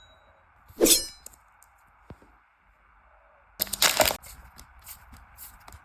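Foil booster pack wrapper crinkling and tearing open: a sharp crackle about a second in, then a longer crackling burst near four seconds, with small clicks of card handling after.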